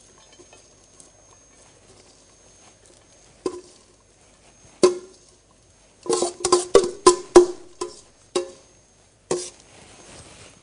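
Sharp knocks and clatter of a utensil striking a metal mixing bowl as salad is tipped out onto a serving platter. A couple of single knocks come first, then a quick run of knocks past the middle, and one or two more near the end.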